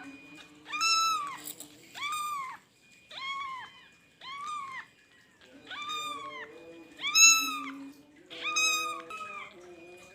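Young rescued kitten meowing repeatedly, about seven high calls that each rise and then fall in pitch. These are the cries the uploader describes as the kitten calling for its mother.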